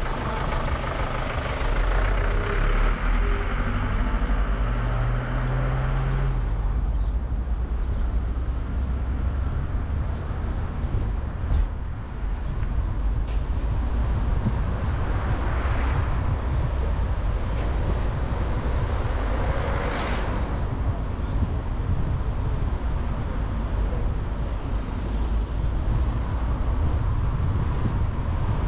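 Car driving in town traffic: steady engine and road rumble, with a deeper engine hum for the first six seconds and two passing swells of traffic noise later on.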